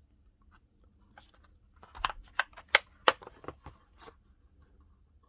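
Plastic blister pack of a carded die-cast toy car being handled, crackling with a quick cluster of sharp clicks about two to three and a half seconds in.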